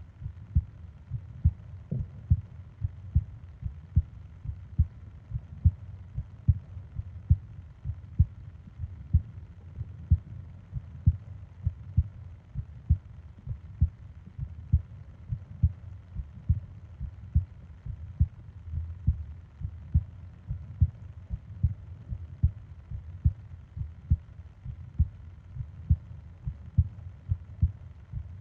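A person's heartbeat recorded close up: a steady, even rhythm of soft low thumps, about two a second.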